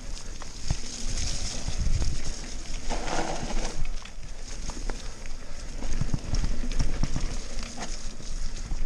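Nukeproof Mega mountain bike rolling fast down a wet dirt singletrack: a steady rumble of tyres on the mud, with many short knocks and rattles as it goes over roots and bumps. A louder rushing noise comes about three seconds in.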